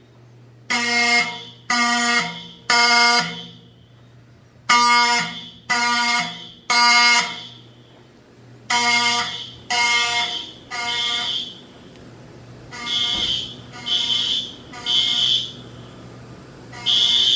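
Fire alarm horns sounding the temporal-3 evacuation pattern: three blasts about a second apart, then a pause, repeating. From the fourth group on, the blasts sound thinner and higher.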